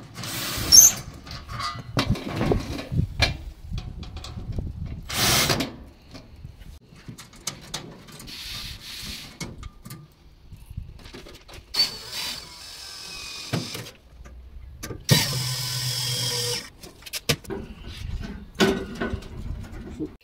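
Power drill running in several short bursts of a second or two, driving screws into the sheet-metal parts of a gas barbecue, with short knocks and clinks of parts and tools between the bursts.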